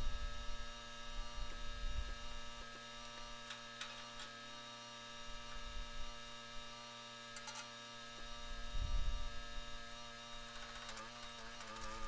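A steady machine hum with several even overtones, with a few faint clicks and a brief low rumble about nine seconds in; near the end the hum shifts in pitch.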